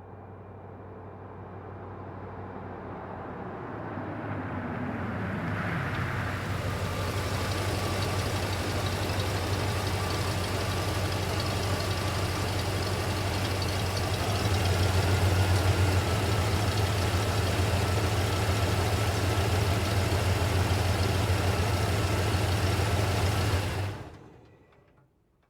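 Truck engine growing louder as the truck pulls up, its pitch falling as it slows to a stop. It then idles steadily, a little louder about halfway through, and is shut off, dying away quickly near the end.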